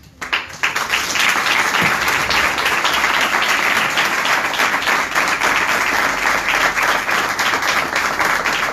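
A small crowd of about twenty people applauding, the clapping breaking out suddenly just after the start and holding steady.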